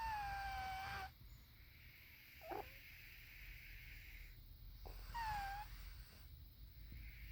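Squeaky snoring: a long whistling squeak that falls slightly in pitch at the start, a short squeak about two and a half seconds in, and another whistling squeak about five seconds in, with soft breathing between.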